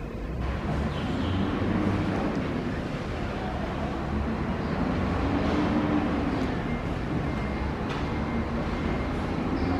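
Steady rumble of street traffic, with a low engine hum that swells a little at times.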